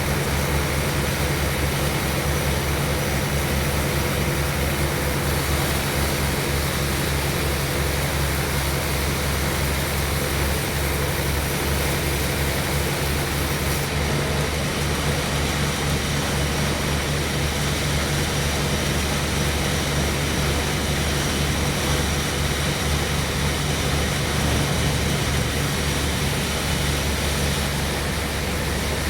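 Sawmill machinery running steadily: an engine drone with an even low pulse.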